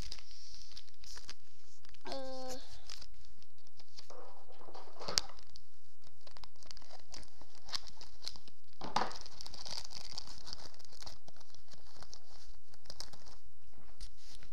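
A toy pack's plastic wrapping crinkling and tearing as it is opened by hand, with scattered sharp clicks, the loudest about five seconds in. A brief pitched whine sounds about two seconds in.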